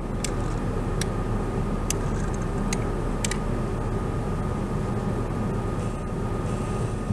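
Steady mechanical rumble with a constant high whine running through it. Several sharp clicks come in the first half.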